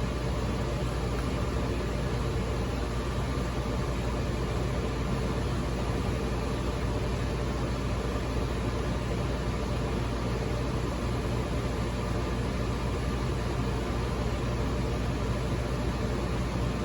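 Steady machine hum with an even rush of air or fan noise, unchanging throughout.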